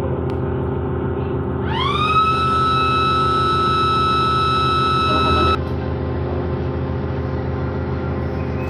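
Diesel commuter train horn giving one long blast, the departure signal: it slides up in pitch as it starts, holds a steady tone for about four seconds, then cuts off sharply. Under it the train's diesel engine drones steadily.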